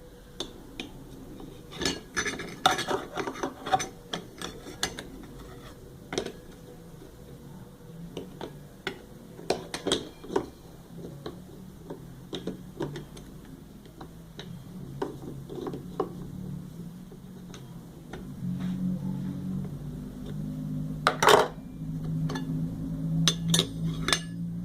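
Metal washing-machine parts clinking, tapping and knocking as they are handled and fitted together during reassembly, in irregular clusters with a sharp knock about 21 seconds in. A low hum comes in about eighteen seconds in.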